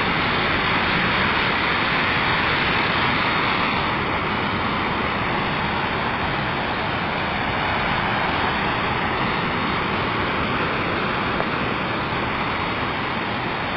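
Steady rain falling on leaves and wet ground, an even hiss with no breaks.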